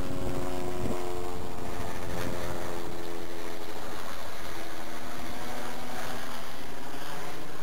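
An aircraft engine drones steadily, its hum made of several tones that slowly fall in pitch.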